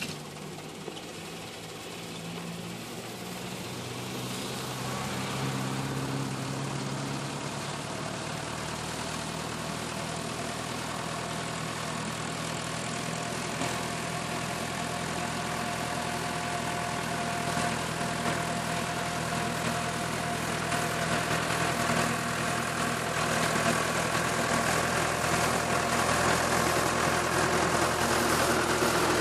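Tractor engine running steadily while working a rotary tiller, drawing closer and growing steadily louder.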